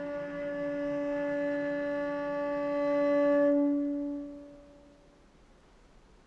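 Cello bowed on a single held note, a steady drone that swells about three and a half seconds in, then fades away within the next second or two.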